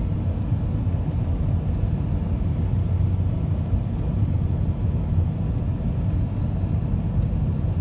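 Steady low rumble of road and engine noise heard from inside the cabin of a car driving at an even speed.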